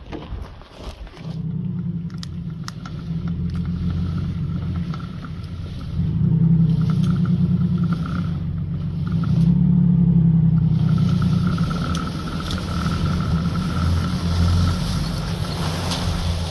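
Pickup truck engine running under load as it tows a heavy fallen ash log on a tow rope. It picks up about a second in and grows louder through the middle, then settles to a steady pull.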